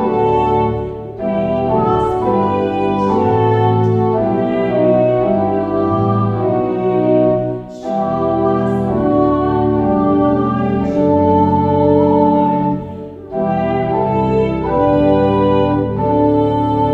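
A congregational-style hymn verse sung with organ accompaniment: held chords sung line by line, with brief breaks between phrases about a second, eight and thirteen seconds in.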